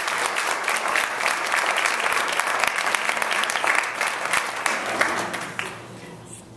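Audience applauding, a dense patter of many hands clapping that thins out and dies away about five and a half seconds in.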